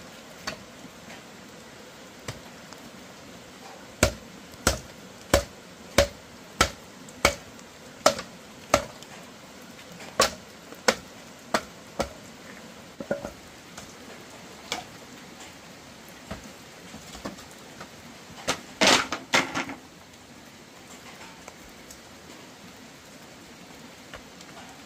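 Sharp knocks of a hand tool striking material: a steady run of about eight blows a little over half a second apart, a few more after a short pause, then scattered single strikes and a quick flurry of blows near the end.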